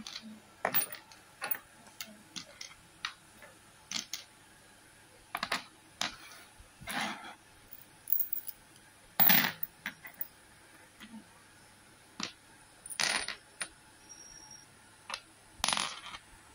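Steel screws and furniture fittings clinking and tapping on a wooden tabletop as a hand picks them up and sets them down one at a time, sorting them into groups. The clicks come irregularly, a few of them louder.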